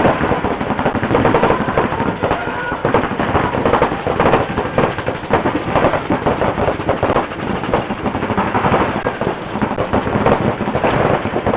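Several paintball markers firing rapid strings of shots at once: a dense, unbroken run of pops.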